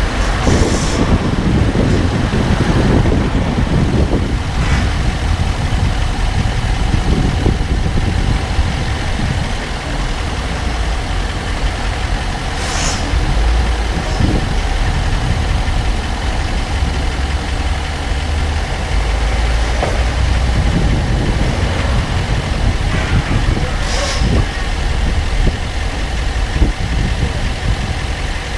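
2014 Range Rover Sport SDV8 moving at low speed, with steady low engine and road noise and a sharp click about four times at irregular intervals of several seconds. This is the unexplained clicking the owner hears when driving slowly.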